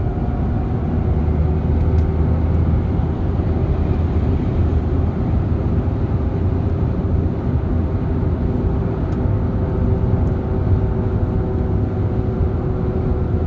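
Steady hum inside the cabin of a 2008 Saab 9-3 1.9 TiD cruising at speed, over road and tyre noise. It is a constant low drone from the driver-side front wheel area that follows wheel speed, not engine speed. The garage suspects the driveshaft, its extension shaft or the gearbox final drive, since the wheel bearings were checked and found fine.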